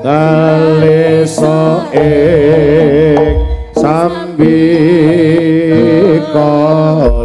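Jaranan ensemble music played loudly through a PA: a sustained, heavily wavering melody line in short phrases over a steady low drone, with occasional sharp drum strokes.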